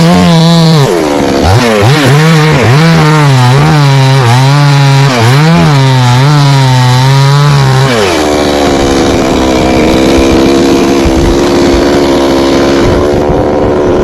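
Two-stroke chainsaw cutting into a coconut palm trunk, its engine pitch dipping and recovering again and again as the chain loads in the wood. About eight seconds in it drops to a steadier, lower running note off the cut.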